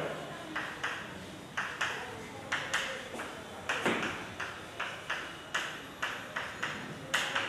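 Chalk writing on a blackboard: a quick, uneven run of sharp taps as each stroke is put down.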